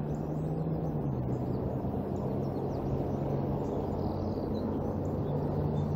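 Steady low rain noise with a faint low hum. Faint songbird chirps come through in the background.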